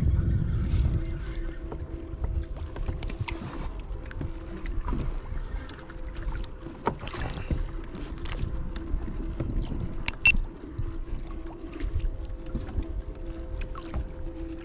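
Water lapping and knocking against a plastic fishing kayak on open sea, with a low wind rumble that is strongest in the first second. Scattered small clicks and knocks from the hull and fishing gear, over a faint steady hum.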